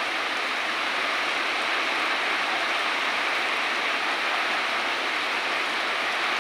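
Heavy tropical rain pouring down on banana leaves and undergrowth, a steady, dense hiss with no thunder.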